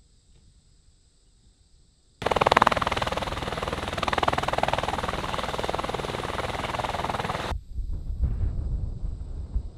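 Medical helicopter with its turbine running and main rotor spinning at close range: a loud, dense rotor and turbine noise that cuts in abruptly after about two seconds of near quiet. Near the end it gives way to a lower, quieter, uneven rotor thumping from a second medical helicopter.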